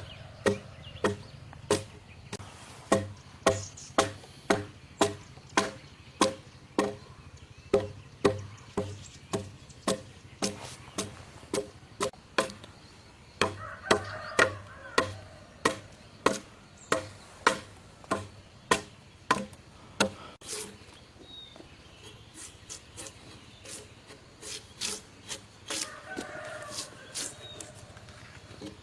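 A hand tool striking wood in a steady rhythm, about two blows a second, for some twenty seconds, then lighter, quicker taps for the rest. Chickens cluck a few times in the background.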